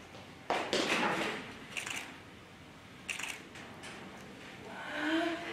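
A sudden thump and scuffing rustle as a person gets onto a wooden bench, followed by two light knocks. Near the end comes a short hummed vocal sound.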